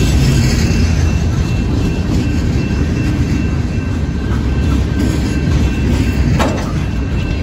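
Freight train's boxcars rolling past close by: a steady low rumble of steel wheels on rail, with a single sharp clack about six seconds in.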